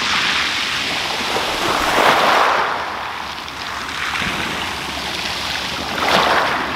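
Small waves washing in over a shingle beach, swelling louder about two seconds in and again about six seconds in.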